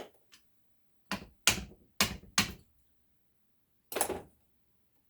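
Hammer blows on metal: four sharp strikes in quick succession, then a fifth about a second and a half later, knocking in one side of a stuck brass water-heater valve fitting to collapse it.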